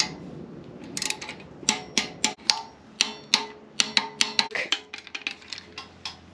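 A wrench ratchet clicking in quick runs of sharp metal ticks as the cam gear bolts are tightened to torque.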